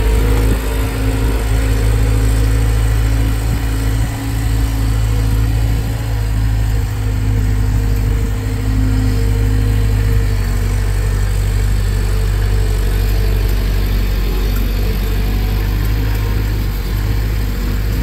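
Gehl 4625 skid-steer loader's engine running steadily at an even speed while it carries and tips a loaded bucket of silage.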